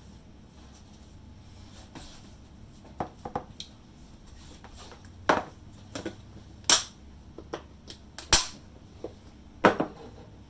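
A utensil knocking against a bowl or container to free clumps of day-old cooked rice: about a dozen sharp, irregular knocks and clacks, a few of them loud.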